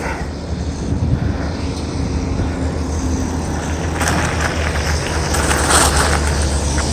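A motor vehicle passing close by on the road, its tyre and engine noise swelling between about four and six and a half seconds in. Under it is a steady low rumble of wind on the microphone from riding.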